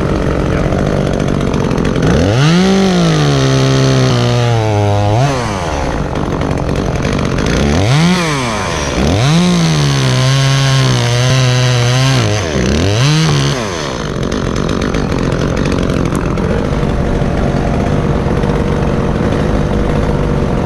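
Echo two-stroke top-handle chainsaw running, revved up twice for a few seconds each to cut a limb, its pitch settling lower as the chain bites into the wood. There are short throttle blips between the cuts, and it drops back to idle near the end.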